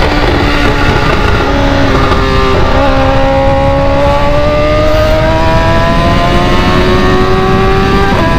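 BMW motorcycle engine with a loud exhaust accelerating under load, its pitch climbing slowly, then dropping suddenly near the end as it shifts up a gear, over steady wind and road rush.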